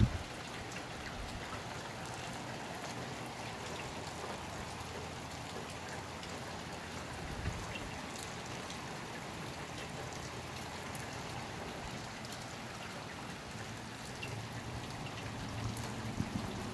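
Steady rain falling, an even hiss with scattered drop ticks. Low rumbling comes and goes near the end.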